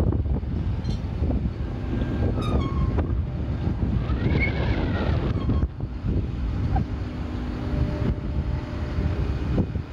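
Wind buffeting the microphone as a heavy, uneven low rumble, with a faint steady hum underneath.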